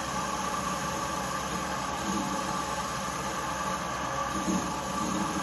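Metal lathe running steadily with a hand-held saw blade pressed against the spinning metal workpiece, scoring a marking groove in it.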